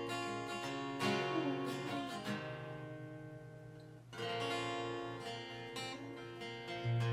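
Acoustic guitar strumming chords, each left to ring and fade, with fresh strums about a second in and about four seconds in. These are the song's last instrumental bars.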